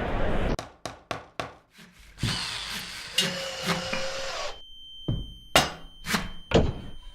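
Hand-tool strikes and knocks cut together in quick succession: a quick run of sharp hits, then a few seconds of a whirring tool that stops abruptly, then more hits about half a second apart.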